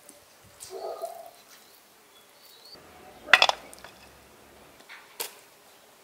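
Steel kebab skewers clinking against metal, with one sharp, ringing clink near the middle and a lighter click about two seconds later. Faint bird chirps sound behind.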